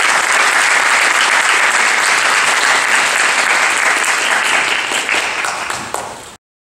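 Audience applauding steadily, the clapping cut off abruptly near the end.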